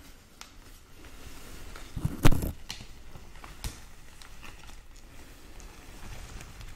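A large bouquet of roses and palm leaves rustling softly as it is handled and its petals are stroked with fingernails, with light clicks and one louder bump a little over two seconds in.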